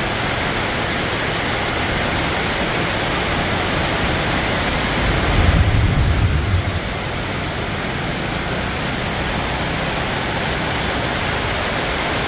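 Steady rain pouring down on wet pavement. A brief low rumble swells about five seconds in, on top of the rain.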